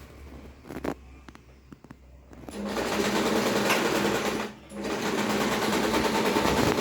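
Usha Janome electric sewing machine starting up about two and a half seconds in and running fast, stopping for a moment about four and a half seconds in, then running on. A few light clicks come before it starts.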